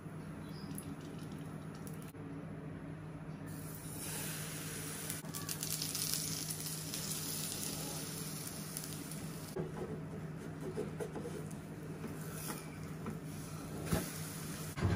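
Pancake batter sizzling in hot oil in a non-stick frying pan. The sizzle starts suddenly a few seconds in, is strongest soon after, then dies down, over a steady low hum. A few knocks of a wooden spatula against the pan come near the end.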